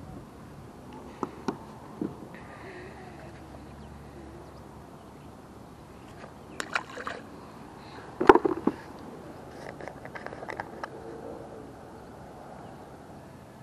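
Handling noises in a plastic fishing kayak while a caught perch is unhooked: scattered knocks and clicks of gear against the hull, with water sloshing. The loudest is a short clattering burst about eight seconds in.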